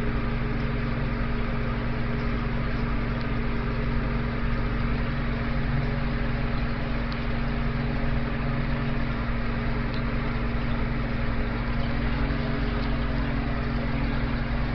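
A small motor humming steadily at one constant pitch, with a few faint clicks.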